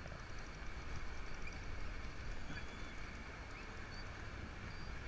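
Steady sea-and-wind noise aboard a small fishing boat: a fluctuating low rumble of wind on the microphone over water washing against the hull, with a few faint short high chirps.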